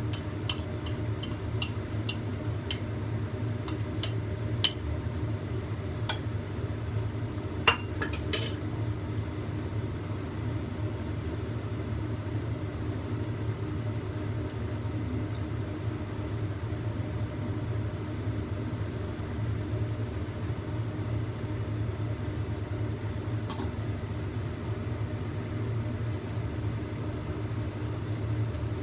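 A spoon clinking and tapping against a ceramic plate, a quick run of clinks in the first few seconds and a few more up to about eight seconds in, then one more clink later, over a steady low hum.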